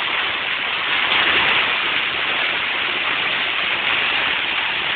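Heavy hailstorm: hail and rain pelting down in a dense, steady hiss, swelling slightly about a second in.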